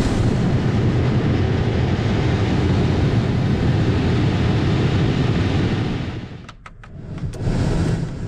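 Pickup cab's HVAC blower fan running fast with a steady rush of air, switching on abruptly as the new blower motor resistor is plugged in: the fan working again after the resistor was replaced. Around six seconds in it dies down, then rises again briefly near the end.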